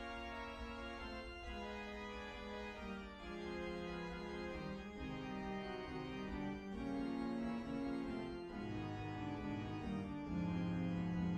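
Organ solo played back from a notation score: quick running sixteenth notes in the upper part over chords in the left hand. A deeper bass comes in about nine seconds in.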